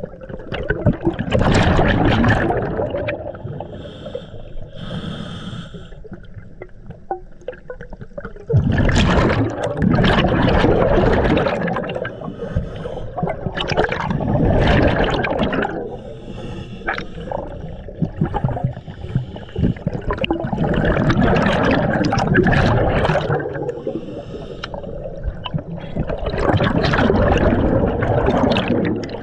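Scuba diver breathing through a regulator underwater: five long rushes of exhaled bubbles, each lasting two to three seconds and coming about every six seconds, with quieter stretches between them.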